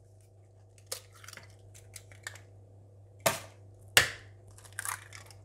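Eggs being cracked into a plastic mixing bowl. Two sharp knocks of eggshell a little over three seconds in, about half a second apart, among small crackles and clicks of shell breaking and being pulled apart.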